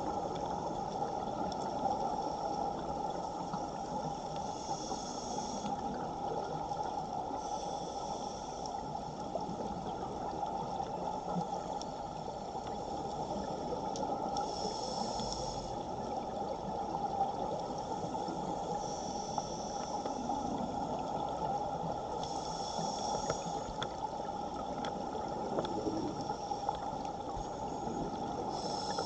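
Underwater rush of water from a strong current over the camera, with a scuba diver's regulator breaths coming as brief hisses every few seconds.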